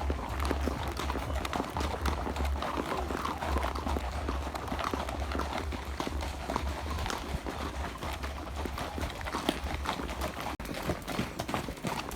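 Horses' hooves clip-clopping on the ground during a ride, a run of irregular knocks, with a low rumble underneath for about the first half.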